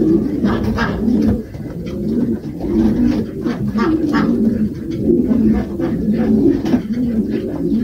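Domestic pigeons cooing: a continuous, low, warbling coo that rolls on without a break.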